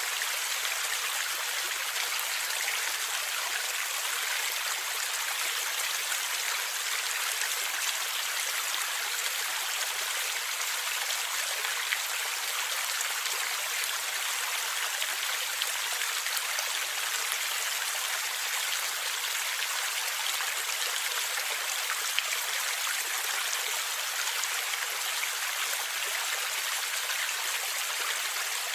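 Stream water flowing and gurgling steadily, an even rushing hiss with a few faint splashes.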